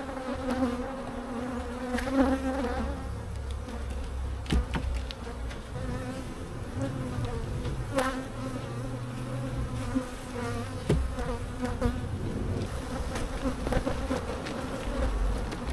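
Honeybee colony buzzing steadily around an open hive, with a few sharp knocks or clicks scattered through.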